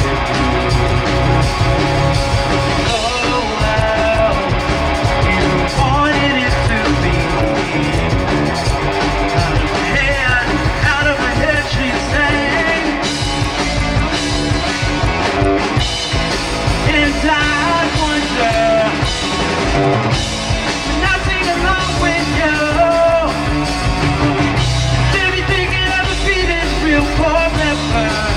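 Live rock band playing a song: amplified electric guitar and drums with a singer's voice over them.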